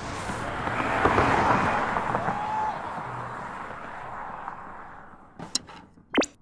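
Sound effects for an animated title: a hissing, rumbling wash that fades away over about five seconds, then two sharp glitch clicks near the end.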